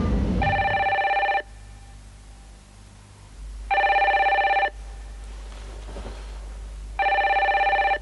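Telephone ringing three times, each ring about a second long and about three seconds apart: an incoming call.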